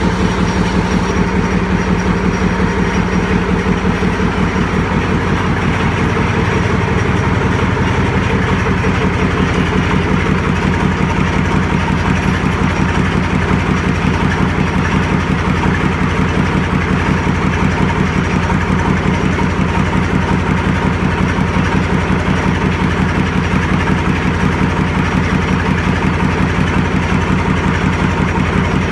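YaMZ-236 V6 diesel engine idling steadily on its first run after a major overhaul.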